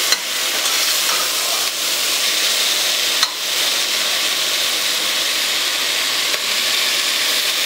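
Mushrooms, tomato and onion sizzling in a pressure-cooker pot, stirred with a steel ladle that scrapes and knocks against the metal. The clearest knock comes about three seconds in.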